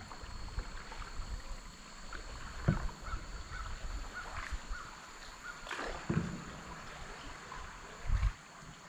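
Canoe paddling on a river: paddle strokes swishing and dripping in the water, with a few low thumps at about three, six and eight seconds.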